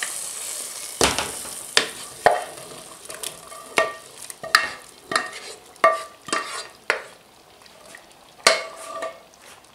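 Wooden spoon scraping and knocking against a non-stick saucepan as thick fried tomato-harissa sauce is scraped out of it: a series of sharp knocks, several with a brief metallic ring, over a light sizzle that fades in the first second.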